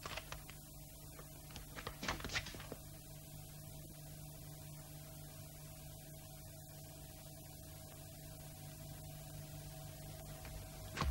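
A faint, low, steady hum, with a few brief faint knocks near the start and about two seconds in.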